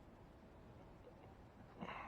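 Near silence: room tone, with one brief soft handling noise near the end.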